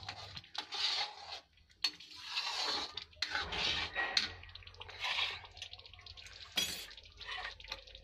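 A long metal spoon stirring thick curry gravy in a steel kadhai: wet swishing and scraping strokes about once a second, with a few sharp clinks of the spoon against the pan.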